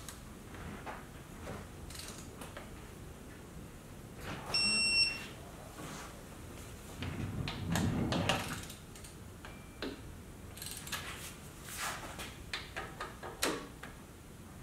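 Digital torque wrench giving a clear electronic beep of under a second, about four and a half seconds in, as a breather bolt reaches its set torque, with a fainter short beep later. Around it come light clicks and rattles of the wrench being worked on the bolts.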